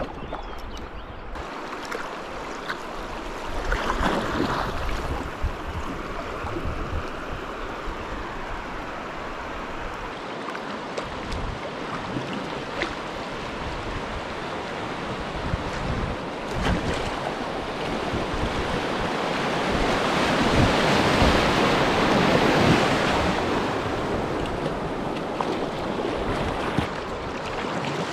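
Rushing river water around a kayak, growing louder about two-thirds of the way through as the boat nears a small rapid, with paddle blades splashing and wind buffeting the microphone.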